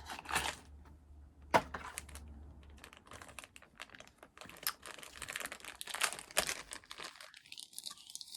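Mystery-key blind-box packaging being torn open and crinkled by hand: irregular rustles, tears and small clicks.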